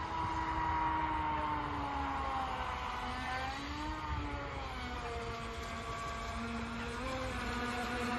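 HobbyKing Aquaholic V2 RC speedboat's electric motor and propeller whining as the boat runs across the water. The pitch wavers up and down as it turns and changes speed.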